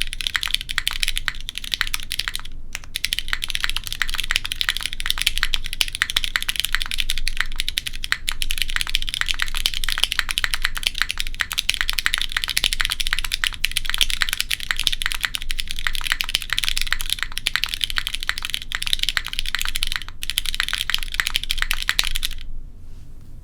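Fast continuous typing on a gasket-mounted mechanical keyboard with Cherry MX2A Black linear switches on an aluminium plate: dense, clean, bright, high-pitched key clacks. The typing pauses briefly twice and stops about a second before the end.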